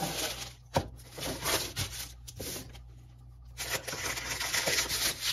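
Parchment paper rustling as it is pressed into a metal cake ring, with one sharp knock a little under a second in. It goes quieter, then the paper is cut with scissors near the end, giving louder crisp rustling and snipping.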